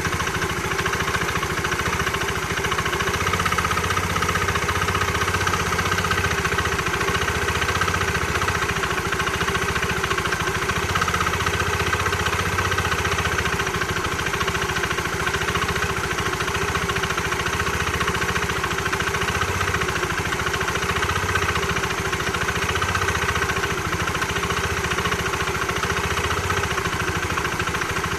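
An engine running steadily at idle, recorded because its owner says it is making an abnormal noise.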